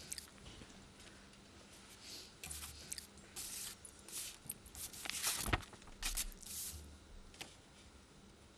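Sheets of paper rustling as they are handled, in short scattered bursts with a few small clicks, over a faint steady hum.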